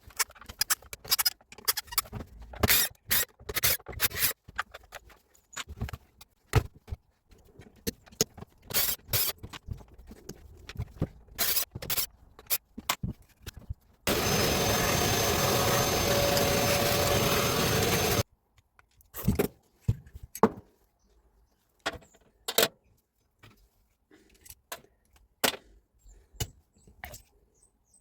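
Metal parts and hand tools clicking, knocking and scraping as a Hilti TE 76 rotary hammer is worked on by hand. About halfway through, a loud steady rushing noise runs for about four seconds and cuts off suddenly.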